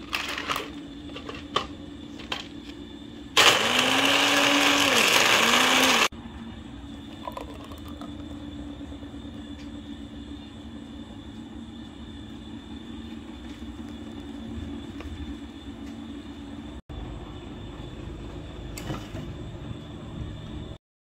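Electric blender running in one loud burst of about three seconds, its motor pitch dipping and recovering as it blends. Around it there is a steady low hum and a few clicks.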